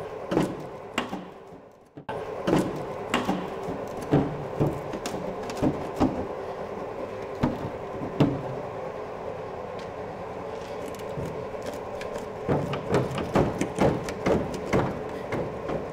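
Steel rear wing panel of a Fiat Dino being levered and pulled to break it free of its old spot welds: irregular metallic knocks, clicks and creaks, over a steady hum.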